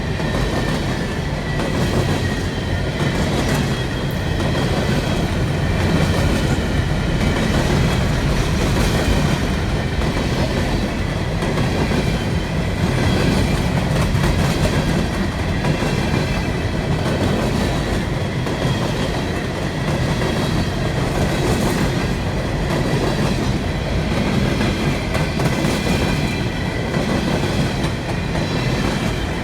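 Empty coal hopper cars of a long freight train rolling past, a steady rumble with wheels clacking over rail joints and a thin steady squeal from the wheels.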